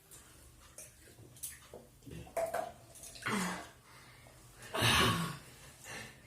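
Hurried eating by hand from plates: mouth noises and breaths in scattered short sounds, with a louder breathy burst about five seconds in.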